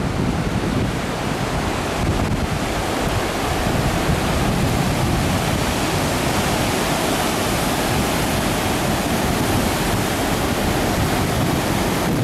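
Sea waves breaking over a shallow reef and washing along the shore: a steady rush of surf, with wind blowing on the microphone.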